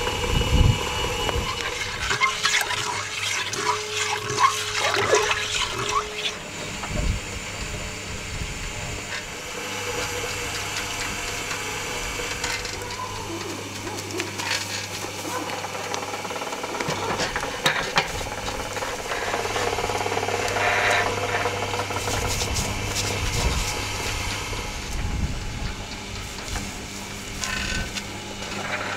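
Electric rotisserie motor turning a whole bull carcass on a heavy steel spit: a steady low hum with intermittent clicks and rattles from the turning spit. Liquid splashes and drips as the meat is basted with a wet herb bundle dipped from a metal pot.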